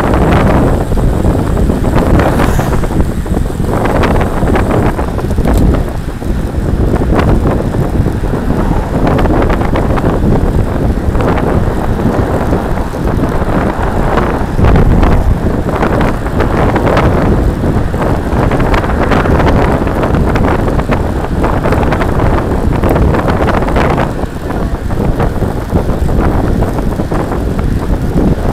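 Steady, loud wind buffeting the microphone of a camera on a road bike riding at speed, a continuous low rumble.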